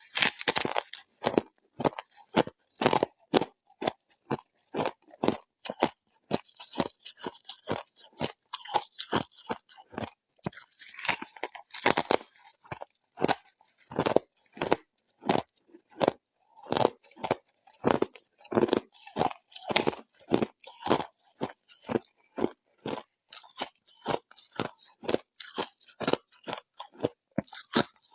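Close-up chewing of crunchy ice frost, a steady run of sharp crunches about two to three a second.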